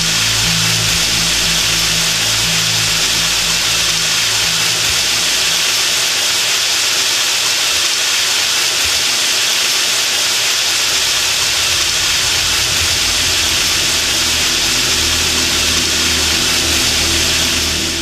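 Steady hiss of water running into a bathtub, as from a shower, which dies away right at the end.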